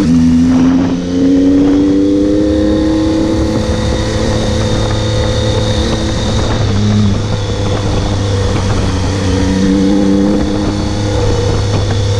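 Triumph Tiger 800 three-cylinder engine pulling steadily while the motorcycle rides along a dirt road, with its pitch rising gently in the first two seconds and wind noise underneath.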